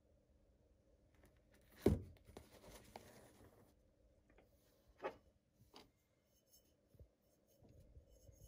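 Faint handling noises from a plastic spice jar and a small glass jar of dried herbs. There is a knock about two seconds in, a short rustle after it, and then a few light taps and clicks.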